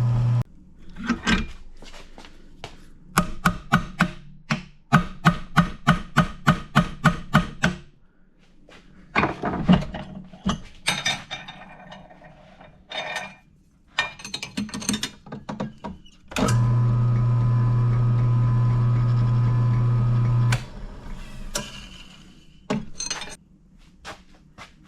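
Workshop sounds while straightening a bent engine pushrod. A run of a dozen or so sharp knocks comes about two to three a second, followed by scattered clicks and knocks. About two thirds of the way in, the motor of the balancing machine that spins the rod to check its straightness hums steadily for about four seconds and then stops.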